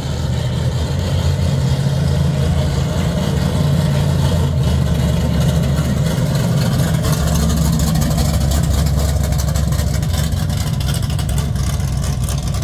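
Lowered square-body pickup truck's engine running at low speed with a deep, steady rumble as it drives slowly by.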